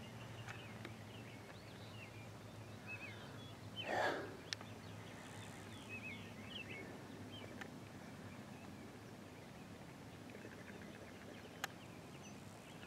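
Faint rural ambience with distant small birds chirping now and then, a soft rush of noise about four seconds in, and a single faint click near the end.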